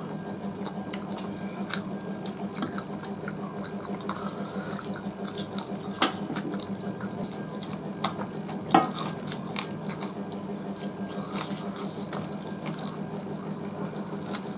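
Eating by hand from steel plates: wet chewing and mouth sounds with fingers working rice on the metal, giving scattered sharp clicks, the loudest about 2, 6 and 9 seconds in. A steady low hum runs underneath.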